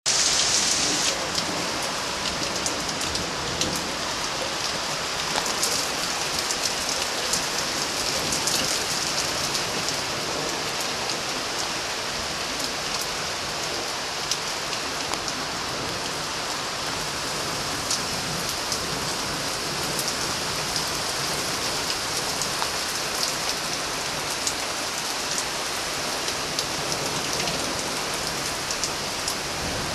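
Steady heavy rain falling, an even hiss with many small drop hits close to the microphone; no thunder.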